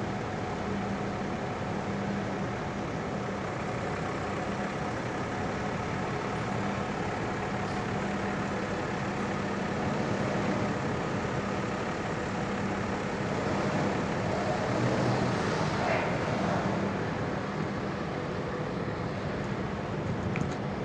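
Steady machinery noise with a constant low hum under a broad rushing sound, unchanging apart from a slight swell a little past the middle.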